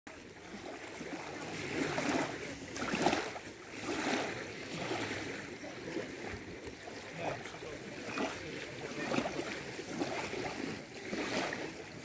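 Small lake waves lapping and washing over a fine gravel shore: a soft splashing rush that swells and eases every second or so.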